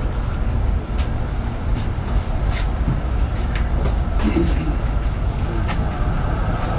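Steady low tram rumble heard from inside a tram's cab, with a few light clicks spread through it.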